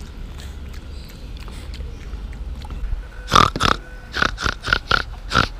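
Pig grunting: a quick series of about seven short, loud grunts in the last two seconds, after a stretch of low rustling.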